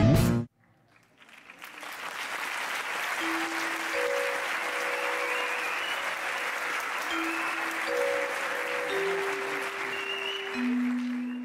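Music cuts off abruptly, and after a brief hush an audience claps steadily. A few held notes sound over the clapping, and a low sustained note of the next music comes in near the end.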